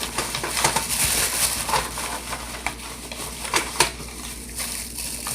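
A hand rummaging through a bag of small items: a steady crinkling rustle with many small clicks and knocks, two of them louder a little past the middle.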